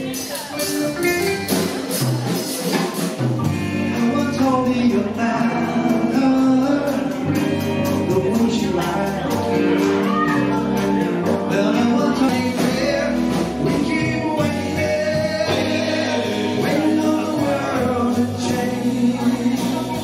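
Live band playing amplified through the room's speakers: electric guitars, bass and drums, with a male singer.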